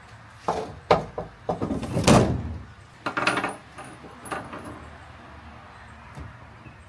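Tailgate cover panel being lowered and set onto the pickup's tailgate: a series of knocks and clatter over the first few seconds, the loudest a little after two seconds in. About four seconds in, a few small metallic clinks as loose screws are picked up.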